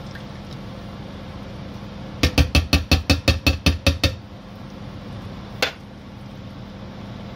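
Tin of coconut milk tapped against a frying pan to shake out the last of the milk: about a dozen quick metal knocks, about six a second, over two seconds, then one more single knock a second and a half later.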